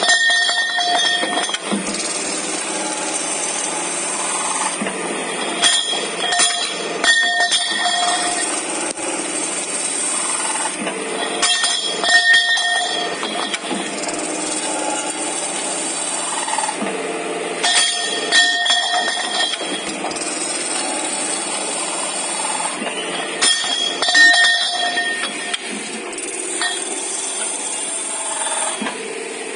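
Double-head pipe chamfering machine running, its cutter heads beveling both ends of metal pipes in repeating cycles about every six seconds. Each cycle brings clanks and a ringing metallic tone from the pipe and cutters over the steady machine noise.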